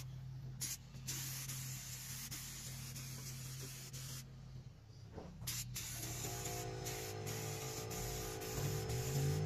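Compressed-air spray gun hissing as it sprays a clear polyurethane base coat, cutting out briefly each time the trigger is released, with a pause of about a second near the middle. A low steady hum runs underneath, and in the last few seconds a pitched drone comes in and rises in pitch.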